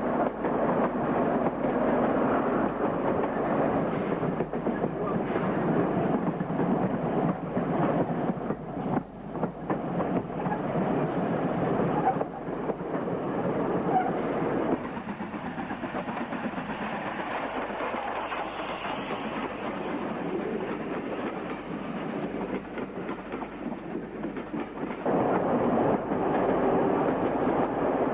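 Diesel train running along the line. The sound drops to a quieter level about fifteen seconds in and comes back up near the end.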